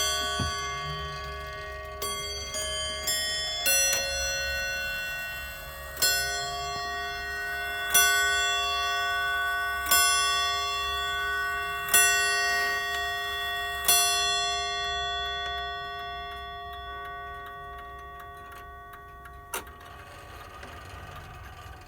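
Seth Thomas Sonora Chimes wall clock chiming after a full overhaul: the end of a quick chime tune, then about six slow strikes about two seconds apart, each left ringing, with the tones fading away afterwards.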